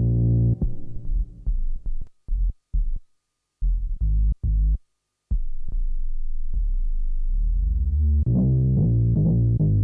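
Behringer Odyssey duophonic analog synthesizer playing low, bass-heavy notes. Short staccato notes stop dead into silence between them, then a held low note comes in about five seconds in, and a quick run of repeated notes starts near the end.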